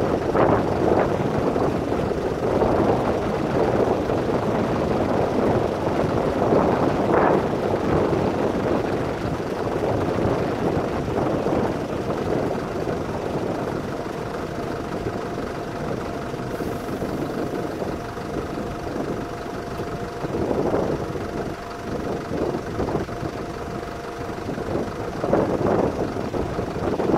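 Wind and wildfire rushing in gusts that swell and fade, with a steady engine hum running under it from about halfway through.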